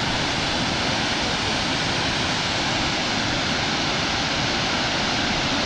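Middle Falls, a waterfall about 107 feet high, making a steady, even rush of falling water.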